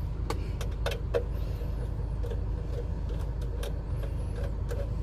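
Screwdriver clicking and tapping against the screws and metal casing of a car radio as a screw is worked loose: a scattering of sharp small clicks over a steady low rumble.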